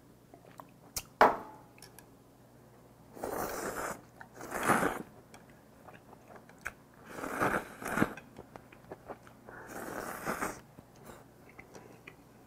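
A person eating instant stir-fried noodles: four long, noisy slurps of noodles with quieter chewing between them. A sharp knock comes about a second in.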